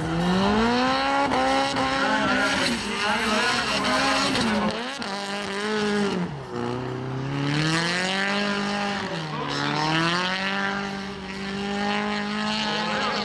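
Drift car's engine revving hard at high rpm as it slides sideways, the pitch dropping and climbing again about five seconds in and twice more later as the throttle is lifted and reapplied, with tyres squealing.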